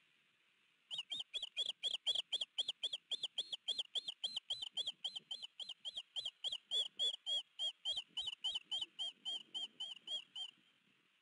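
Osprey calling: a fast, even series of short, high chirps, about four a second, beginning about a second in and ending shortly before the end.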